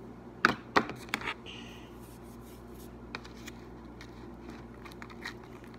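A plastic spoon stirring glue and borax in a plastic tub, scraping and knocking against the sides. Two sharp knocks about half a second in are the loudest, followed by scattered lighter clicks and scrapes.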